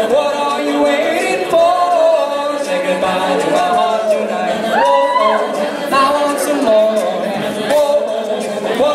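An a cappella group sings a pop song into microphones: several voices layered together and held throughout, with no clear lyrics.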